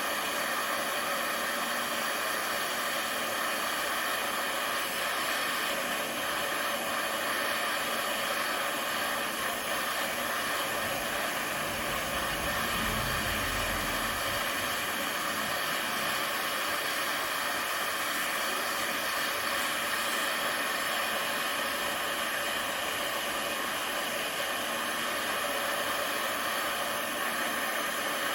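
Gas torch flame hissing steadily while it heats a bent steel steering rod to soften it for straightening. The steel is harder than expected and the flame not hot enough, so the heating drags on. A brief low rumble comes about twelve seconds in.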